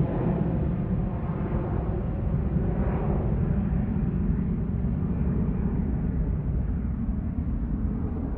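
Airplane flying by: a steady low rumble whose higher tones slowly thin out as it passes.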